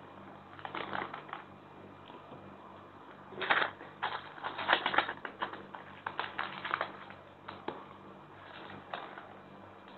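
Crinkling and crackling of a small plastic-foil instant-noodle seasoning sachet being handled and squeezed, in irregular bursts that are busiest from about three and a half to seven seconds in.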